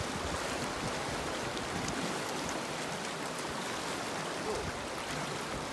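Sea surf washing along the shore, a steady even hiss.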